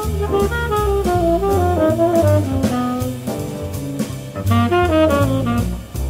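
Jazz quartet playing at a swing tempo: a tenor saxophone runs a stepping melodic line over walking double bass and a drum kit with steady cymbal strokes. The line breaks off briefly near the end.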